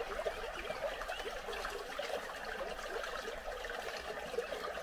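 Water trickling and babbling steadily, as of a shallow stream running over stones.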